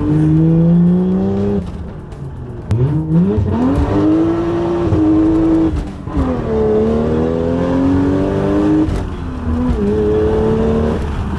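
Toyota 1JZ turbocharged straight-six engine pulling under acceleration through a manual gearbox. Its pitch climbs with revs, then falls sharply at each upshift, about four pulls in all.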